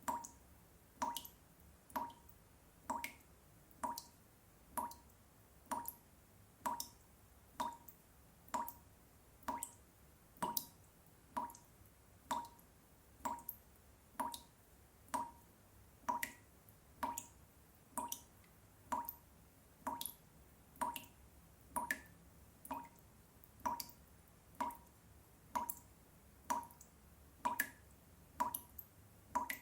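Water dripping from a tap, one drop about every second in a steady, even rhythm.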